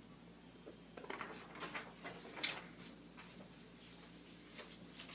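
Faint paper-handling noises: sheets of drawing paper rustling and shuffling, with scattered soft clicks and knocks, the loudest about two and a half seconds in.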